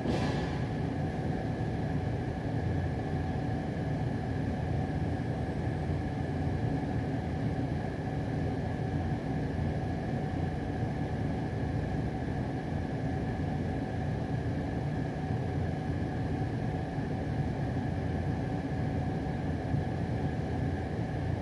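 Steady low mechanical hum with two faint steady whining tones held throughout; no distinct bangs stand out.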